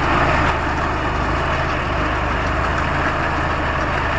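Tractor engine running steadily, a rapid low firing beat under a dense, even mechanical noise.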